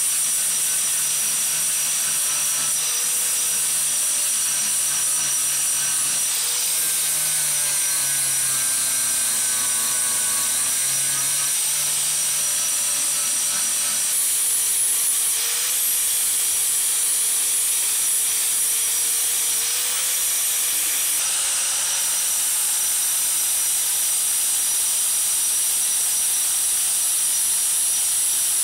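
Angle grinder with an abrasive disc grinding rust off a steel knife blade: a steady high motor whine over a constant grinding hiss. The motor's pitch sags and recovers a few times as the disc is pressed harder into the steel.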